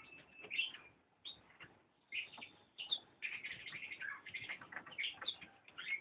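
Canary chicks chirping in quick, busy bursts of high calls, with a short lull about a second in.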